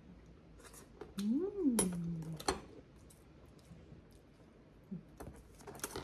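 A short voice-like call about a second in, rising and then falling in pitch, with a few sharp clicks and knocks of objects being handled.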